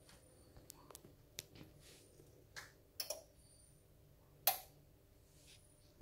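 Yamaha RX-V375 AV receiver clicking about half a dozen times as it is switched on and set to an FM preset. The loudest click comes about four and a half seconds in, over a faint steady hum.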